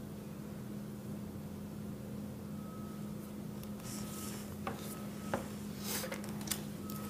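Room tone with a steady low electrical hum. From about halfway in come a few faint sharp clicks and short hissing rustles.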